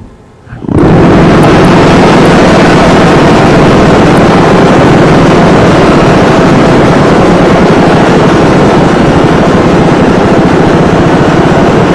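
Harsh noise: a dense, heavily distorted wall of noise that cuts in abruptly about a second in and holds at full loudness without a break.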